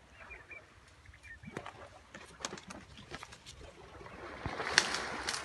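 Dry reed stems rustling and crackling as they are pushed aside, with a run of sharp irregular clicks and snaps, the loudest a bit more than three quarters of the way through.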